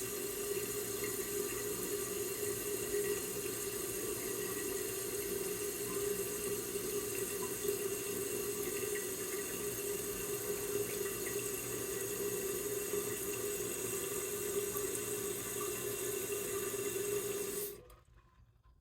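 Toilet tank refilling: water runs steadily through the fill valve with a hissing rush, then shuts off suddenly near the end.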